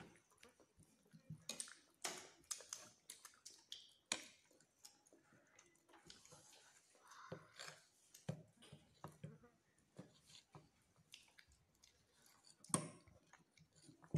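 Small children eating: chewing and mouth sounds, with a fork and plastic spoons clicking and tapping on plates at irregular moments, and one sharper knock near the end.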